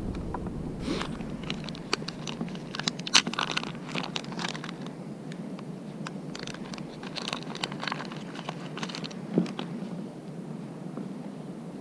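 Hands handling small fishing tackle close to the microphone: a plastic packet crinkling and small plastic floats and parts clicking and tapping, with the sharpest click about three seconds in.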